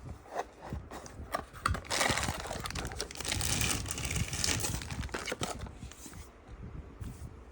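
Packaging being handled and opened: crinkling and rustling, with scattered small clicks and a longer stretch of crinkling from about two seconds in.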